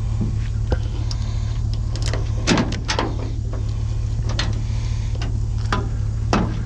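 Vehicle engine idling with a steady low hum, over which come several sharp knocks and clanks, loudest about two and a half seconds in and again near the end.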